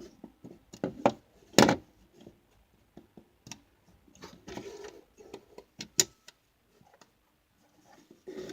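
Plastic LEGO bricks clicking and clattering as they are handled and sorted, a few sharp clicks with the loudest about one and a half seconds in and quieter rattling between.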